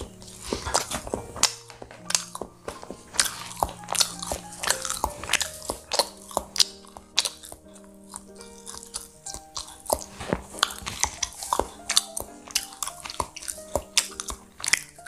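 Close-up chewing of soft potato bingka cake, with many sharp wet mouth clicks, over background music.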